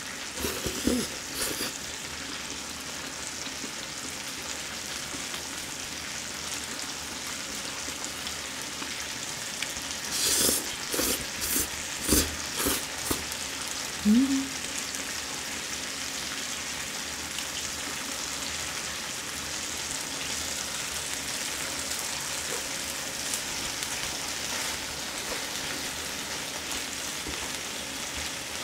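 Seasoned duck ribs sizzling steadily on a grill pan. Sharp clicking mouth and eating sounds come about ten to thirteen seconds in, followed by a short rising hum.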